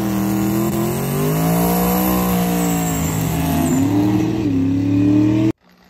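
Turbocharged LSX V8 of a Chevy Colorado drag truck running hard during a burnout, its pitch rising, dipping and rising again, then cutting off suddenly near the end.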